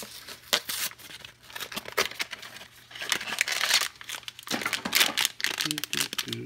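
Hands opening a small cardboard blind box and pulling out a foil pouch, then crinkling and tearing the foil open, with irregular crackling rustles. The crinkling is densest about three to four seconds in.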